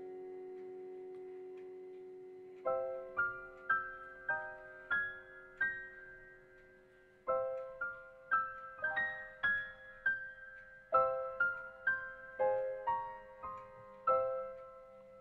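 Soft background piano music: a held chord dies away, then a slow series of single notes, each struck and fading.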